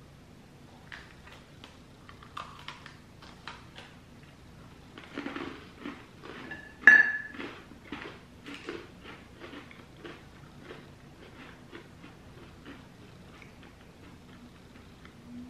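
Chocolate sandwich cookies being bitten and chewed: a run of short, crisp crunches, with one sharp, louder click about seven seconds in.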